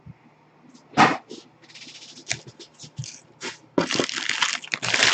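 Foil trading-card pack wrapper being torn and crinkled by hand: a loud crackle about a second in, scattered short rustles, then loud continuous crinkling from near four seconds in.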